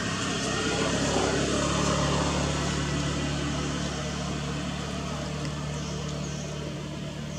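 A motor vehicle engine running steadily with a low hum. It swells a little one to two seconds in, then slowly fades.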